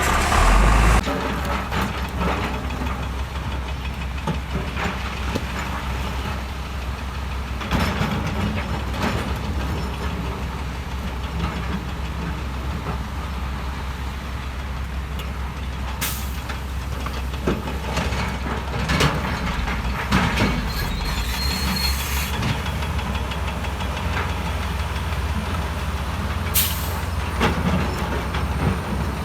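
Heavy diesel earthmoving machinery running steadily, with a few sharp clanks and knocks scattered through.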